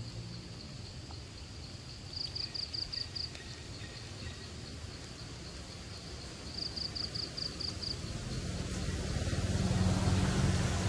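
Forest ambience: a steady high insect drone, with two short runs of rapid chirps, about six each, and a low rumble that grows louder near the end.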